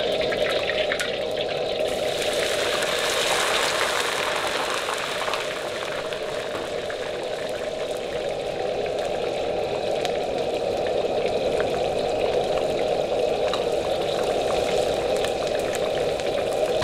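A steady, even bubbling hiss of liquid cooking in a pan, with faint crackles scattered through it.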